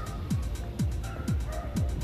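Background music with a steady kick-drum beat, about two beats a second, and hi-hat ticks between the beats.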